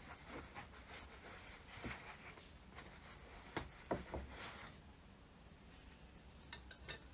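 Faint, scattered clicks and knocks of small parts being handled while an old car hand pump is worked on, with a brief scraping rub a little past the middle and a few quick ticks near the end.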